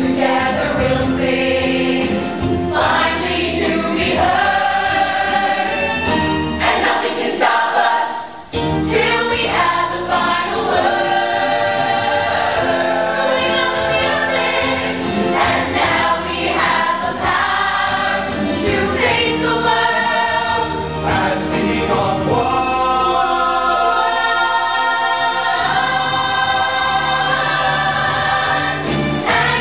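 Show choir of mixed high-school voices singing a song together in parts, with a brief break about eight seconds in.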